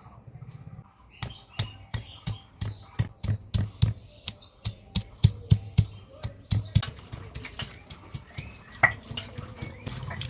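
Ginger, garlic and black mustard seeds being crushed by hand into a spice paste, with a run of sharp knocks about three a second; the knocks thin out about seven seconds in.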